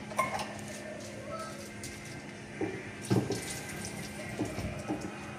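Water running and splashing, with scattered knocks and clinks, the loudest about three seconds in, over a steady low hum.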